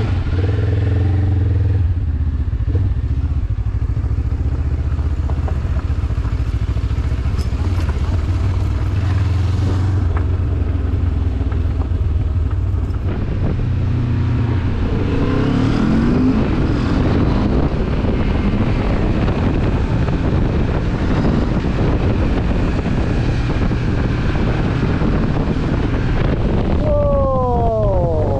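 Benelli TRK 702's parallel-twin engine running steadily as the motorcycle rides off at low speed, heard from on the bike with wind and road noise. Near the end an engine note falls in pitch.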